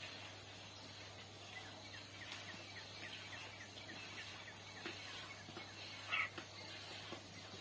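Faint bird calls: a quick series of short, falling chirps, then a louder call about six seconds in, over a steady low hum.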